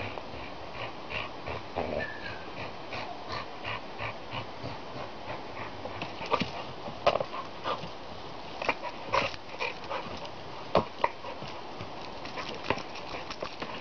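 Pit bull jumping at and biting a hanging plastic fishing buoy: a quick rhythm of the dog's hard breaths and grunts, with sharp knocks of teeth and paws on the buoy that grow louder in the second half.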